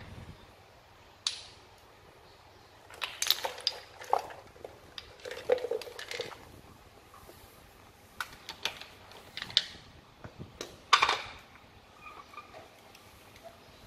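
Wooden toy blocks clacking against each other and the hard floor as a child picks them up and stacks them: irregular sharp knocks, often several in quick succession.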